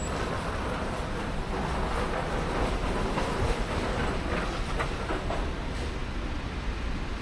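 Steady rumble of city street traffic and general street noise, with no clear single event standing out.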